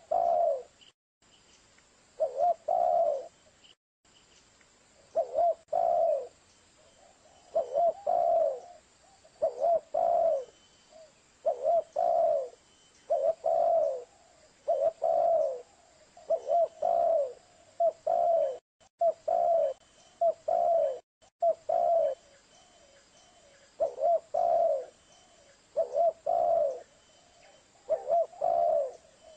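Spotted dove (tekukur) cooing: a short phrase of two or three coos repeated about every two seconds, played as a lure call to draw in spotted doves.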